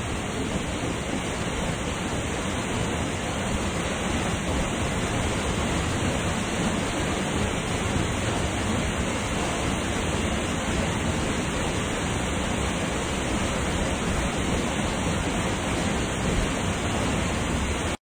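Waterfall pouring into a pool: a steady, even rush of falling water.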